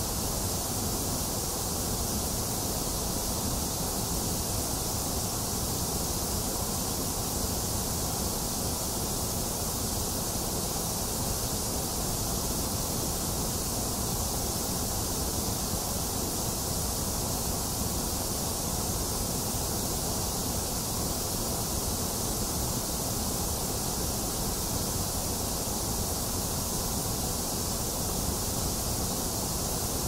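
Steady white noise for baby sleep: an even, unchanging hiss with no drops, clicks or breaks, a little weaker in the upper middle range.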